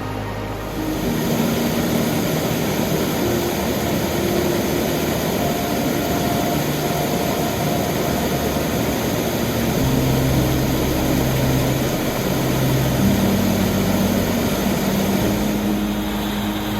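Waterfall rushing: a steady, dense noise of falling water that swells up about a second in. Soft background music with long held notes sounds underneath.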